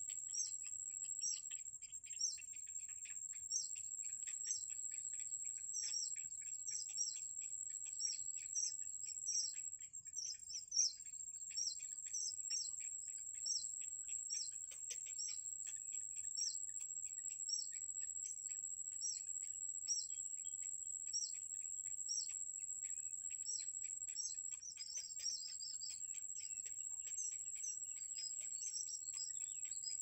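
Bittern chicks begging in the nest: short, high chirps repeated about twice a second, with a quicker flurry late on, over a steady high-pitched tone.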